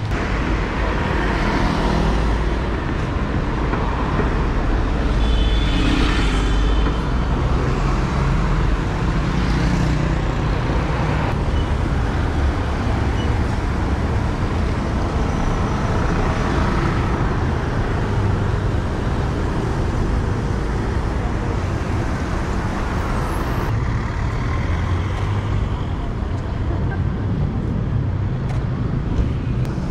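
Busy city street traffic on wet roads, a steady wash of passing cars and buses.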